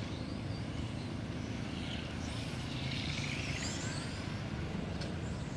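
Steady low rumble of wind on the microphone, with the faint whine of RC cars' motors rising and falling as they run on the track, most clearly a couple of seconds in.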